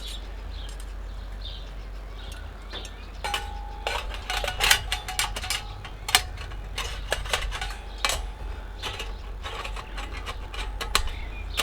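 Sheet-metal panels of a small flat-pack camp cooker being handled and fitted together: scattered metal clicks and clanks, with a brief ringing tone a few seconds in.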